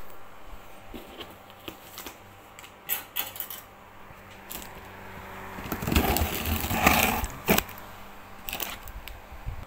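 A taped cardboard shipping box being handled: scattered light taps and clicks, then a louder stretch of rustling and scraping a little past the middle that ends in a sharp knock.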